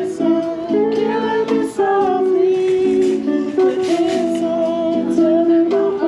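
Live acoustic guitar playing held chords, with a voice singing along.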